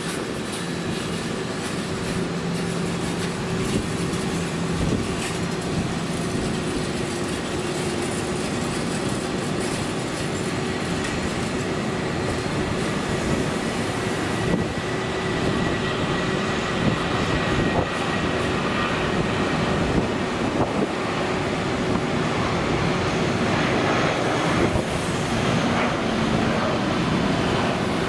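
The twin IAE V2500 turbofan engines of an Airbus A320 running at takeoff thrust during the takeoff roll, a steady rumble that grows a little louder toward the end as the jet lifts off.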